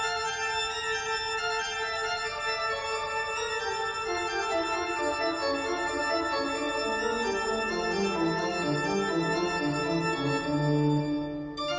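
Background organ music of held chords, with lower bass notes stepping in about halfway through and a brief drop-out just before the end.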